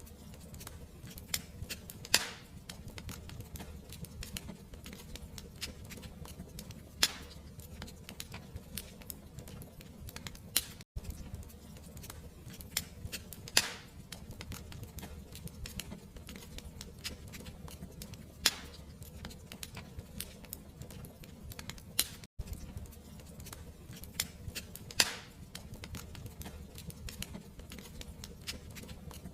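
Wood fire crackling over a steady low rumble, with many small ticks and a sharper, louder pop every few seconds. The sound cuts out for an instant twice.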